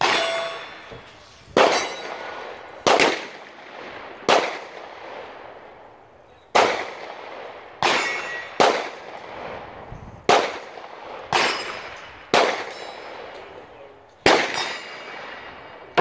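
Gunshots at a busy shooting range: about a dozen single shots at irregular intervals, each sharp crack followed by a long echoing decay.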